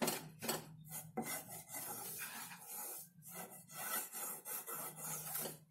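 Wooden spatula scraping and stirring a crumbly mixture of roasted besan and milk powder around a kadai, a run of irregular rasping strokes.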